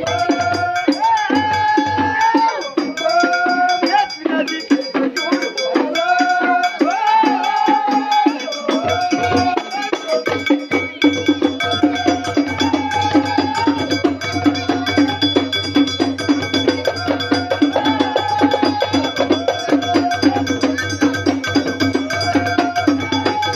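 A men's chorus singing a chant in unison over hand-beaten frame drums keeping a fast, steady rhythm. The singing is strongest in the first ten seconds or so, then drops back while the drumming goes on.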